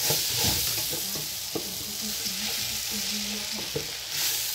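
Rice frying in oil with seasonings in a large aluminium pot, sizzling steadily, while a spoon stirs it and scrapes against the pot, with scattered clicks. The rice is being sautéed in the oil before the water goes in.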